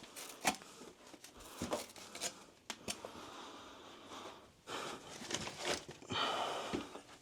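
Irregular rustles, clicks and short scrapes of drywall taping work: paper joint tape being handled and laid over a wet plaster join.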